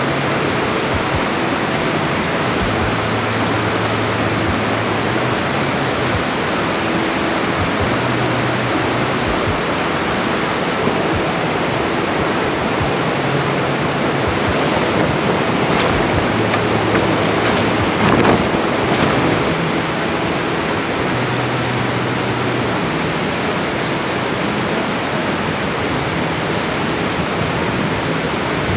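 Steady rushing water of a mountain stream, swelling a little about two thirds of the way through.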